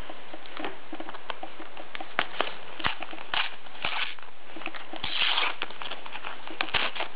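Stickers shuffled and set down on a wooden table, then a sticker packet handled and torn open by hand: scattered light clicks with brief bursts of crinkling, the longest about five seconds in.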